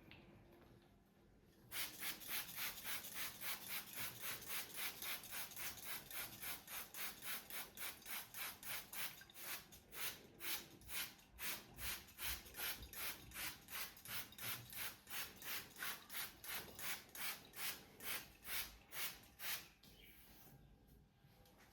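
Brisk, rhythmic rubbing strokes of a back massage, about two to three strokes a second. They start about two seconds in and stop shortly before the end.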